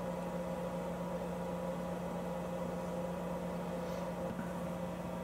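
Steady mechanical hum with a constant low tone over a faint even hiss, heard from inside a truck camper.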